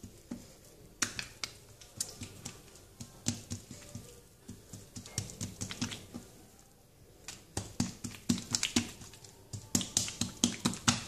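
Oily hands patting and pressing msemen dough out thin on a granite countertop: an irregular run of soft slaps and sticky clicks, coming in quick clusters.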